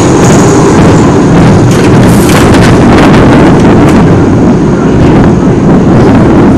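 Wind buffeting the ride-mounted camera's microphone over the rumble and rattle of a small roller coaster's cars running along their steel track, very loud throughout.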